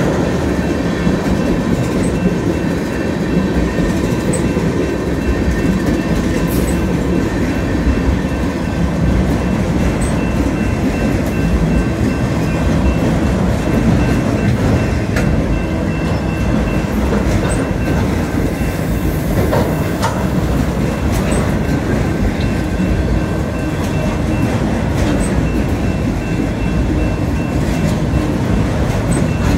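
Freight cars of a mixed freight train rolling past: tank cars, then autorack cars. A steady rumble of steel wheels on rail with clickety-clack over the joints and a few sharp clanks.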